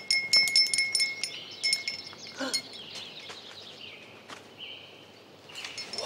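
Chiming, bell-like sounds: a quick run of chime strikes that ring on in the first two seconds, followed by fainter scattered tinkles and gliding tones.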